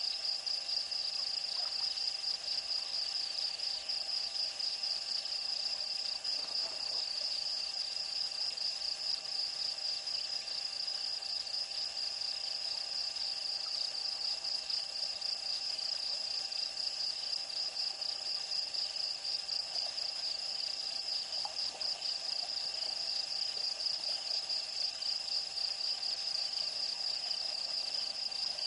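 Night insect chorus: crickets trilling in a steady, high-pitched, unbroken pulse, with faint steady lower tones beneath.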